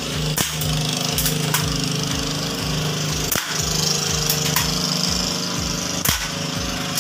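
Silenced airsoft pistol fired single shots: three sharp cracks roughly three seconds apart, with lighter ticks between them, over a steady low hum.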